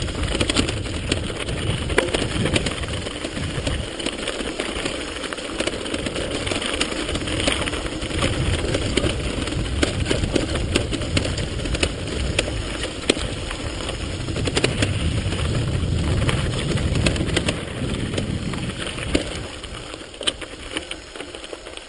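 Mountain bike rolling fast down a loose gravel and rock trail, with tyres crunching over stones and the frame and parts rattling in many small clicks and knocks. Wind rumbles on the microphone throughout. The noise eases off over the last couple of seconds.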